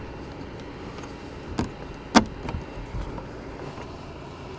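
White plastic push pins being pressed into the side of a rooftop vent cover: a few short, sharp clicks, the loudest about two seconds in.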